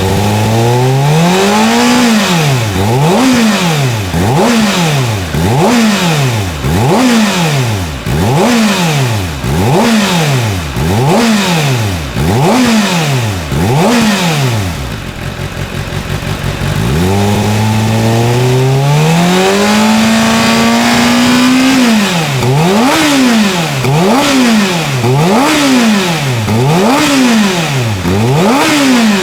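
Kawasaki Ninja ZX-6R's 636 cc inline-four, through a TRICK STAR IKAZUCHI titanium full exhaust, blipped repeatedly, rising and falling about once a second. About halfway through it settles lower, then climbs more slowly and holds a higher rev for a few seconds before the quick blips start again.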